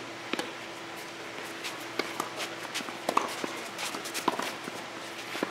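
Tennis rackets striking a ball in a doubles rally: a serve, then sharp hits about a second apart, with shoes scuffing and stepping on the clay court between the hits.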